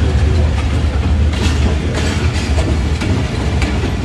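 Pakistan Railways passenger coaches rolling past close by: a steady heavy rumble with a few sharp wheel clacks over the rail joints.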